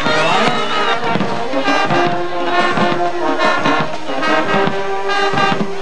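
Brass band playing a tune, with held horn notes over a steady drum beat.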